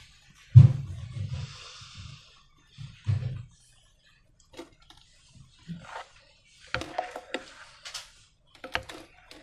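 Slime being squished and handled by hand. There are soft low thuds near the start and again about three seconds in, followed by scattered sticky clicks and crackles.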